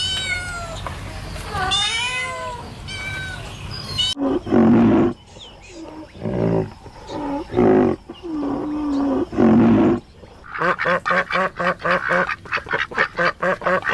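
A cat meowing, high calls that rise and fall; after a sudden cut about four seconds in, a larger animal gives several low, drawn-out calls; from about ten and a half seconds in, ducks quack rapidly, about four calls a second.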